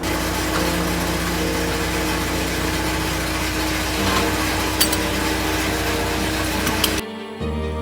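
Concrete pump's engine running steadily with a constant low hum, with two sharp knocks in the second half. About seven seconds in it cuts off abruptly and music takes over.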